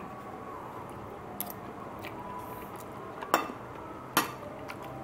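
Metal spoon clinking and scraping against a plate a few times, with two sharper clinks in the second half.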